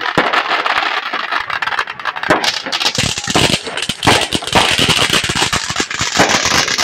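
Ground fountain fireworks spraying sparks: a steady hiss thick with rapid crackling, with louder snaps scattered through.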